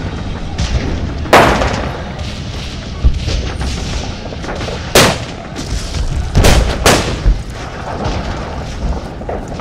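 Scattered gunfire from blank-firing rifles: a sharp loud shot about a second in, another near the middle, then two close together a moment later, with fainter shots between them over a steady low rumble.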